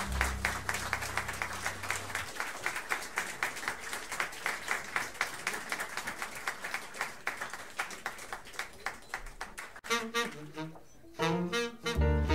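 Live audience applauding at the end of a jazz tune, with a last low note dying away about two seconds in. Near the end it cuts off abruptly and the next number starts: a jazz quartet with tenor saxophone, double bass and drums coming in just before the end.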